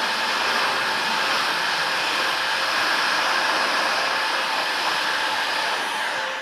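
Electric heat gun blowing a steady rush of hot air onto a crankshaft ball bearing, heating it to about 200–250 °F so it expands for a shrink fit onto the crank. The rush drops away near the end.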